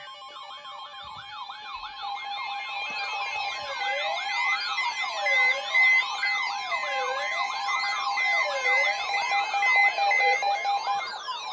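Several weather alert radios sounding their alarms at once for a tornado warning: steady alert tones with a siren-like tone sweeping up and down about every second and a half, a faster warble above it and a high steady beeping joining in a few seconds in.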